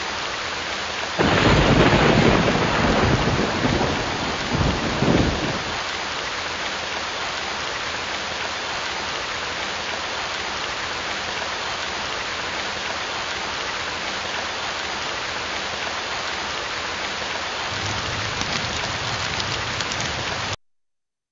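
Steady heavy rain with a loud rolling thunderclap about a second in that rumbles on for about four seconds, peaking again near the end of the rumble. Near the end the rain grows a little louder, with some crackling, before it cuts off suddenly.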